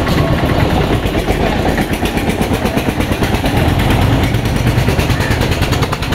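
A small vehicle engine running steadily close by, with a fast, even pulsing.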